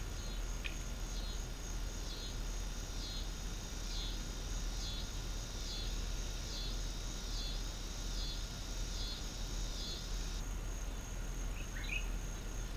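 An insect chirping in an even rhythm, a little more than one short, pulsed chirp a second, high in pitch, stopping abruptly about ten seconds in. A bird chirps briefly near the start and again near the end, over a steady outdoor hiss.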